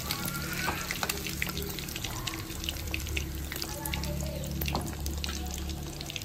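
Prawns frying in hot oil in a pan: a steady sizzle dotted with many small crackles and pops, over a low steady hum.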